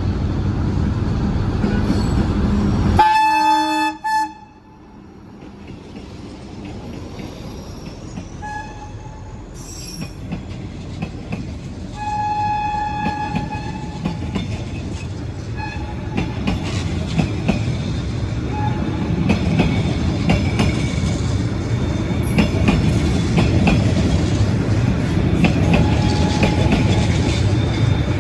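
Diesel locomotive of a Vietnamese passenger train sounding its horn, with one loud blast about three seconds in that cuts off suddenly, then shorter horn toots around nine, twelve and sixteen seconds. Train rumble and wheel clatter run underneath and grow louder through the second half.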